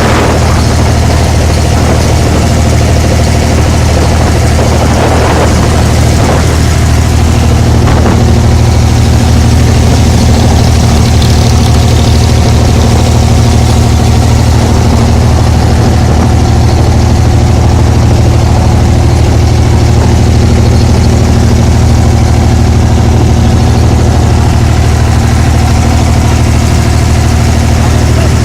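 Diesel engine of an abra water taxi running steadily and loud, a deep drone with a steady higher hum joining it about seven seconds in.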